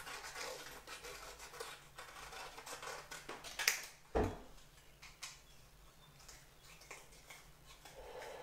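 Scissors cutting thin paper in a run of short snips, with a dull thump on the table about four seconds in.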